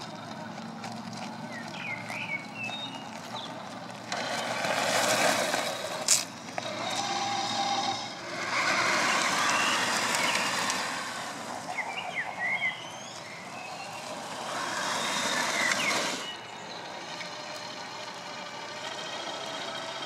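Loose gravel crunching in three loud stretches of a few seconds each, under a 1/8-scale RC crawler driving over a stony construction-site surface. Small birds chirp now and then, and there is one sharp click near the middle.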